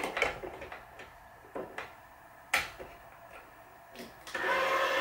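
Small clicks and taps as string and clamps are handled on a racquet stringing machine, with one sharp click about two and a half seconds in. Near the end a loud, steady whirr starts, the electric motor of a Wise 2086 tension head running.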